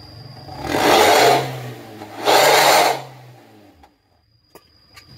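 Toyota Avanza Veloz engine through a bolt-on aftermarket 'suos' racing muffler, idling and blipped twice in quick succession, each blip a loud growling exhaust burst of under a second. After the second blip the sound settles and fades away about four seconds in.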